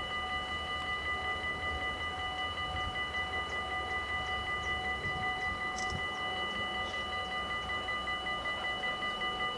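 Dutch AHOB level-crossing warning bells ringing continuously in a quick, regular pulse: the crossing is closed and a train is approaching.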